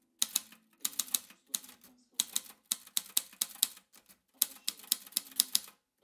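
Typewriter keys striking the paper, clacking in quick runs of sharp strokes with short pauses between words.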